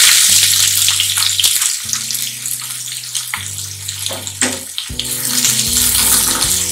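Sliced onions sizzling in hot oil and ghee in a nonstick frying pan, loudest just after they go in and then easing off, with a few clicks; near the end a spatula starts stirring them.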